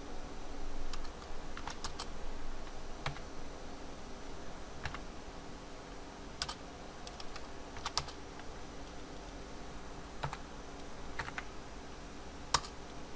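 Computer keyboard keystrokes: irregular, sparse typing with pauses between key presses, the loudest near the end, over a faint steady hum.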